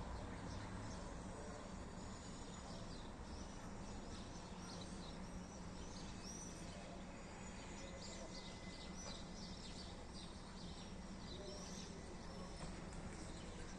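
Swallows twittering: a steady stream of short, high chirps over a faint background hiss.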